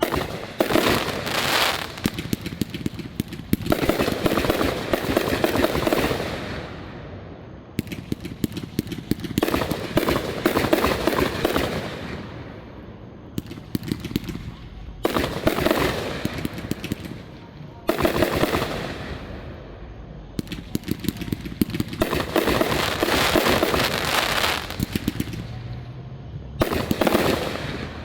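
Fireworks firing in rapid strings of sharp reports and crackling bursts. The barrages come in waves a few seconds long, with short lulls between them.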